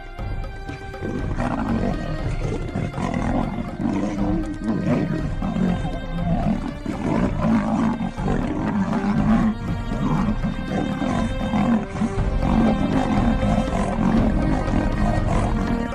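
Big cats roaring and snarling in a fight, starting about a second in and going on continuously, over steady background music.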